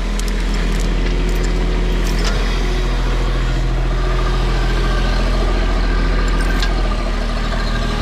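Bobcat MT100 stand-on mini track loader's engine running steadily, with a few light clicks over it.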